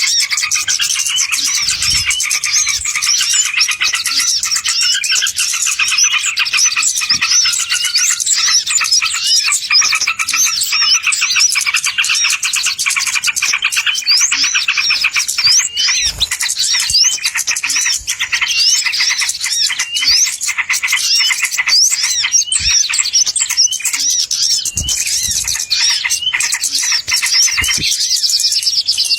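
Dense, continuous chorus of many small birds chirping and twittering rapidly over one another, a bird-lure (pikat) call recording used to attract wild birds.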